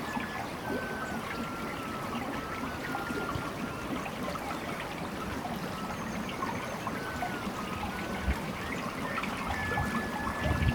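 Water trickling and splashing steadily, with many small drips and plops.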